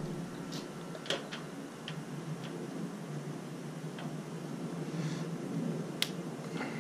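Scattered light clicks and taps, about a dozen, irregularly spaced, with the sharpest near the end, from tools and parts being handled during electrical work on a water heater, over a steady low hum.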